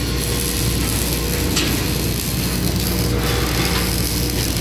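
Steady machinery drone in a steel fabrication shop, a low hum with a constant mid-pitched tone, and the crackle of an electric arc welder near the end.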